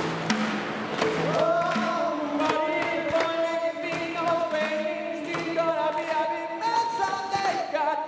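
A group of voices singing live in harmony, starting about a second in, over sharp repeated percussion hits struck on a large plastic water jug used as a drum.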